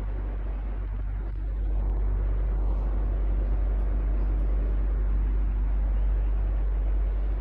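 Electric fan running steadily: a low hum under an even rush of air, a little louder from about two seconds in.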